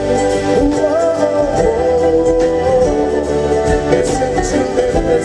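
Live acoustic band music: an instrumental passage of plucked strings under a sustained melody line that slides in pitch.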